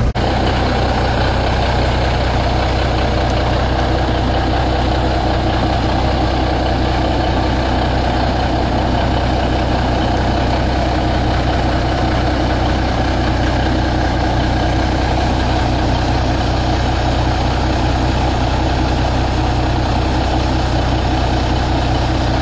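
1973 Hayes HD dump truck's 350 Cummins diesel engine idling steadily, running smoothly.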